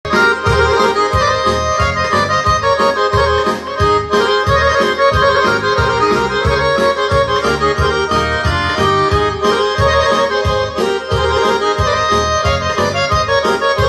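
Instrumental intro of a Balkan folk song: an accordion-voiced melody over a steady bass-and-drum beat, played from an electronic arranger keyboard.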